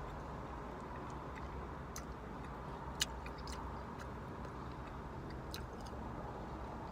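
Quiet eating sounds: scattered light clicks and taps of a spoon and mouth sounds while soup broth is eaten, one sharper click about three seconds in, over a steady low hum.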